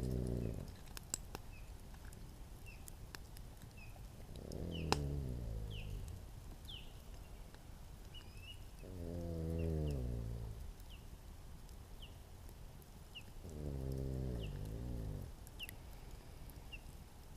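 A man snoring, one drawn-out snore about every five seconds, over the scattered pops of a campfire. Faint short high chirps repeat about once a second throughout.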